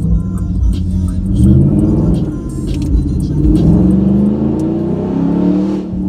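Dodge Hemi V8 muscle cars accelerating hard, heard from inside a following car. The engine note climbs and falls in pitch in repeated pulls, with the longest climb from about three and a half to five seconds in.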